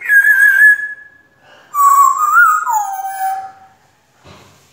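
African grey parrot whistling in two loud calls: a short wavering whistle at the start, then a longer one about two seconds in that rises, then slides lower and trails off. A faint short rustle follows near the end.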